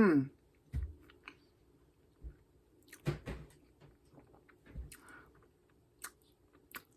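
A person chewing and eating a bite of cheesy chicken and broccoli casserole: soft wet mouth sounds and scattered small clicks and knocks, with a short falling voiced sound at the very start.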